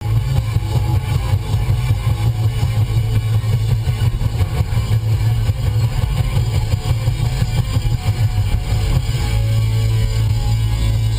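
Music with guitar over a steady low rumble, starting abruptly.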